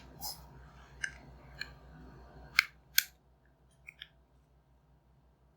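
Small sharp clicks and ticks of Bose QC-15 headband parts being handled and pressed into place, a scattered series with the two loudest about two and a half and three seconds in and a faint pair near four seconds.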